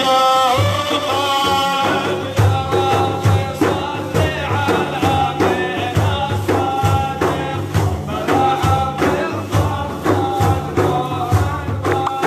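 Middle Eastern devotional praise-song (madih) music: a melody of held notes over a steady beat of hand drums and tambourine.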